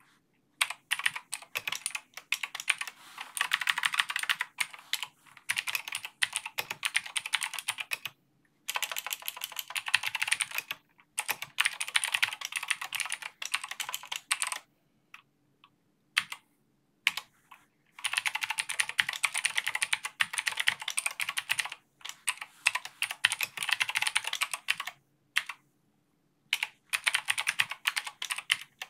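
Typing on a computer keyboard in quick bursts of keystrokes, broken by short pauses and a longer lull about halfway through.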